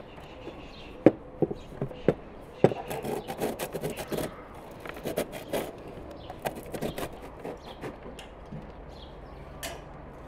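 A series of irregular sharp knocks and clicks, densest in the middle of the stretch, over a steady low background.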